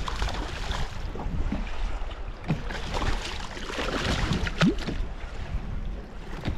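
Choppy waves slapping and splashing against the hull of a small fishing boat in heavy wind, in irregular bursts, with wind rumbling on the microphone.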